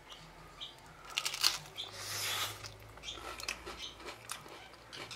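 A person biting into and chewing a slice of oven-baked baguette pizza with a crisp toasted crust and melted cheese. The sound is crunching, loudest about a second and a half in.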